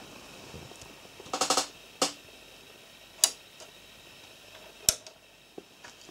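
Camera handling noise: a quick cluster of ticks about a second and a half in, then single sharp clicks spaced a second or more apart, the last ones fainter.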